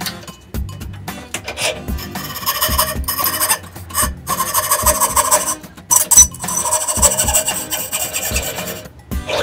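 Coping saw cutting thin MDF held in a bench vise, rasping back-and-forth strokes as the blade follows a curved line around a small disc, with a couple of brief pauses.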